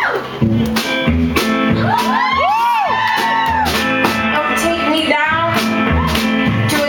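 Live band performing a song: strummed guitar with regular drum hits and a steady bass line, while several voices sing together, sliding up and down in arching glides about two to three seconds in.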